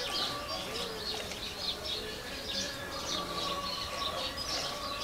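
Cow being milked by hand: milk squirting into a pail in short hissing spurts, about two a second, with birds calling in the background.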